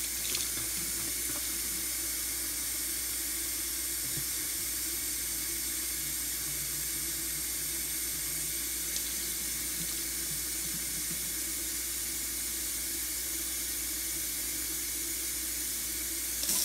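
Water running steadily from a tap into a 2-liter plastic bottle, filling it.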